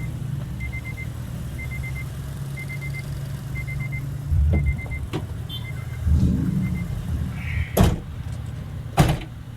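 Car idling with a low steady hum while an electronic warning chime repeats a quick run of three or four high beeps about once a second. The chime stops about two thirds of the way through, and a few clicks and two sharp knocks follow near the end.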